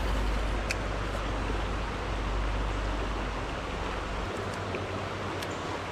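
Shallow rocky creek running in a steady rush of water. A low rumble under it drops away about four seconds in, and there are a couple of faint clicks.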